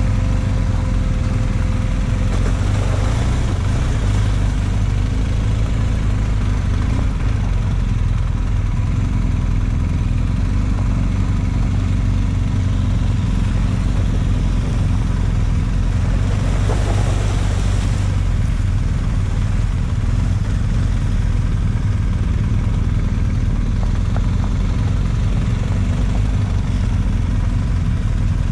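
Quad bike engine running steadily, loud and close. There is a brief rush of noise about three seconds in and another lasting a couple of seconds around sixteen seconds in.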